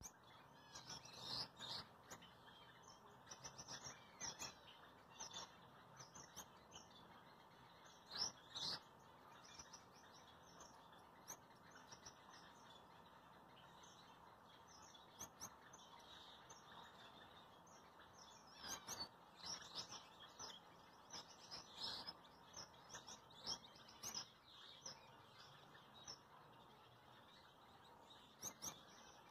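Caged Gouldian finches giving faint, short, high-pitched chirps, scattered irregularly and sometimes in quick clusters, over a faint steady hiss.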